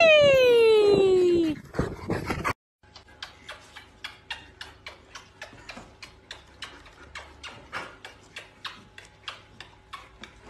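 A Bernese mountain dog gives a long whine that slides down in pitch, the loudest sound here. Then comes a run of quick, soft scratching strokes, about three a second, as a Berner paws at a couch cushion.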